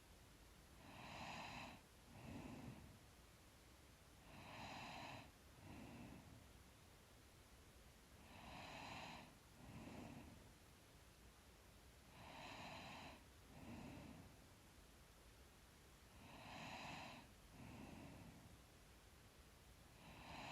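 A sleeping woman's slow, faint breathing with a soft snore, about one breath every four seconds: a stronger, slightly nasal sound followed about a second later by a softer one.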